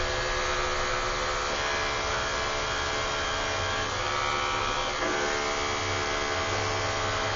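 Electric dog grooming clippers running steadily as they clip a poodle's coat. The buzz is even throughout, its pitch dropping slightly about five seconds in.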